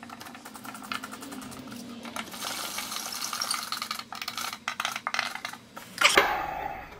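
Hand screwdriver driving screws into the jig's MDF parts: a run of quick clicks and scraping. About six seconds in, the melamine panels are lifted and shifted, the loudest part.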